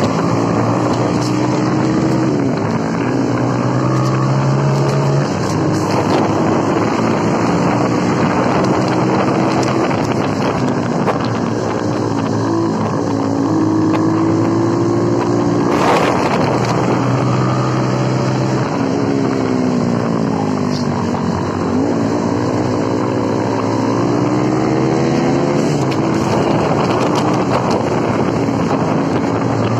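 Motorcycle engines running on the move, their pitch holding steady and then falling and rising several times as the riders work the throttle and gears, with wind rushing over the microphone. A brief burst of noise stands out about halfway through.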